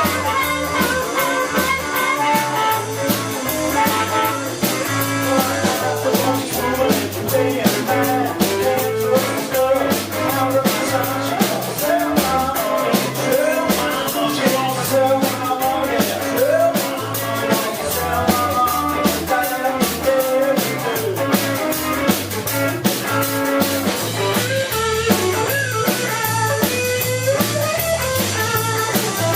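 A live electric blues band playing: electric guitar over a drum kit keeping a steady beat, with a walking low line underneath.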